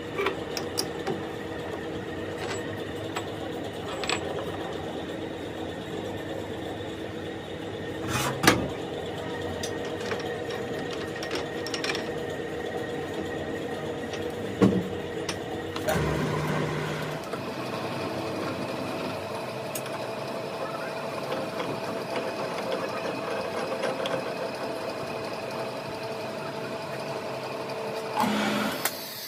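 A workshop machine running steadily with a whirring hum and a few sharp metallic knocks, the loudest about a third of the way in; the hum changes pitch slightly just past halfway.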